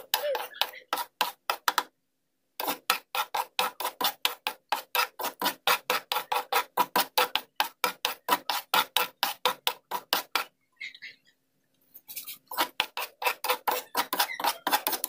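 Metal spoon scraping and knocking against a frying pan as white powder is stirred in it, at about five strokes a second, with two short breaks: one about two seconds in, and a longer one near the middle.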